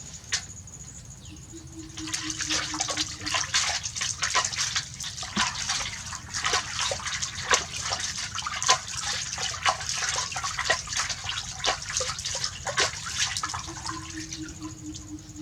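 Bath water splashing in quick, irregular splashes and slaps. It starts about two seconds in and eases off near the end.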